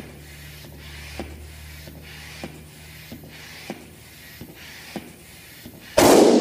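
Hand-operated stand-up air pump worked in quick, regular strokes, about three every two seconds, each a rush of air with a small click, inflating a balloon. About six seconds in the over-inflated balloon bursts with a loud pop.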